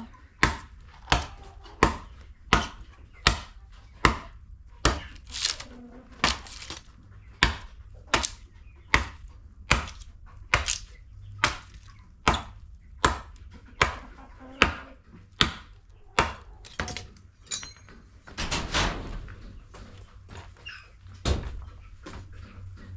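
A blade chopping into a piece of timber, trimming it down so it will fit into the coop frame: a steady run of sharp strikes about every 0.7 seconds. The strikes stop about three-quarters of the way through, followed by a longer rough scraping sound and then one last strike.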